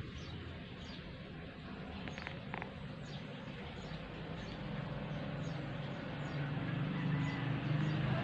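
Faint high chirping, repeated every half second or so, over a low steady hum that grows louder toward the end.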